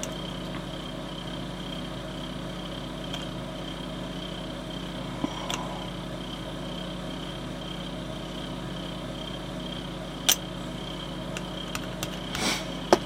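Steady low electrical-type hum of the workbench room, with a few small clicks and taps as a bottle of liquid plastic cement and its brush cap are handled. The sharpest click comes about ten seconds in, and another small clatter comes near the end.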